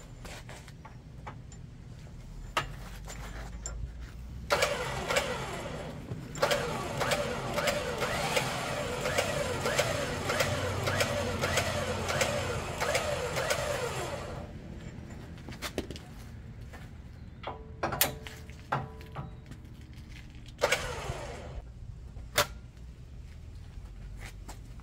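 Apex Badland 12,000 lb electric winch running under power for about ten seconds, its steel cable spooling on the drum, with a brief pause about six seconds in. Then come a few short bursts and clicks as the winch is run in brief jogs.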